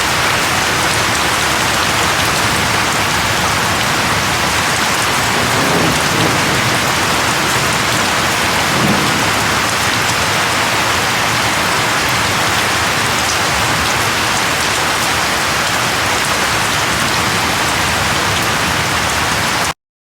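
Steady heavy rain falling, an even hiss with two brief low rumbles about six and nine seconds in; it stops abruptly just before the end.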